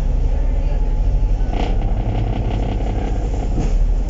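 Engine and road rumble of a KMB double-decker bus on route 77K, heard from inside the passenger cabin: a steady low drone, with a short clatter about a second and a half in.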